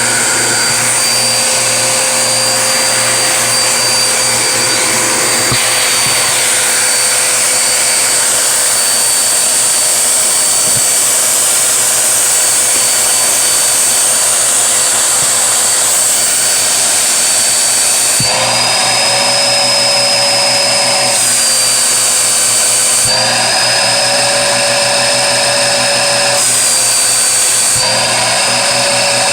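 Vacuum cleaner running steadily with a high motor whine. In the second half the whine rises a little in pitch and grows richer three times, each time for a few seconds, then settles back.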